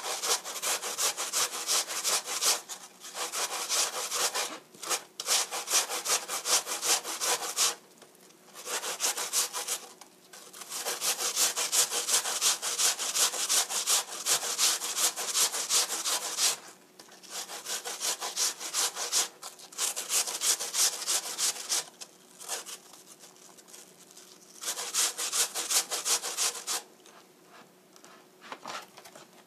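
Peeled apple being grated by hand on a stainless steel box grater: rapid rasping strokes in runs of a few seconds with short pauses, lighter near the end.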